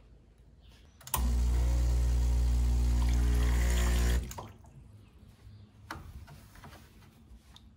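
Saeco SE50 espresso machine's pump humming as water flushes through the group head for about three seconds, starting about a second in and cutting off suddenly; a few light knocks follow as the group head is wiped.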